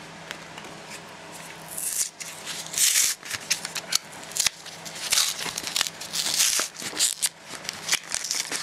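Stiff clear plastic of a Pokémon card blister pack crackling and crinkling in irregular bursts as it is worked open by hand, starting about two seconds in.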